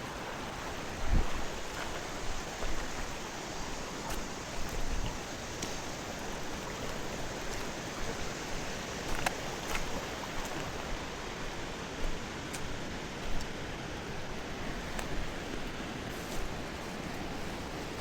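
Steady rushing of flowing river water, with a few faint clicks and low knocks of handling scattered through.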